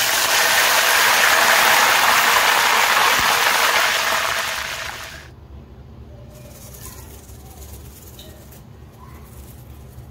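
Handful of curry leaves sizzling in hot oil in a saucepan, a loud, dense sizzle as they are tempered. It dies away about five seconds in.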